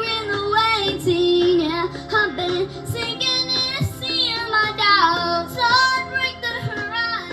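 Young female voices singing a held, melismatic line over instrumental backing music.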